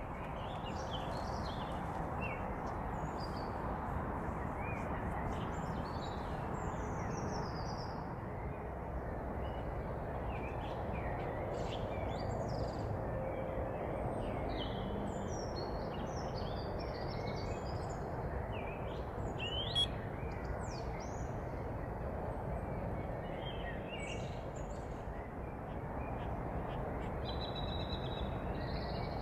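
Birds calling in short scattered chirps and calls over a steady low rush of outdoor background noise. One brief, louder sharp sound stands out about twenty seconds in.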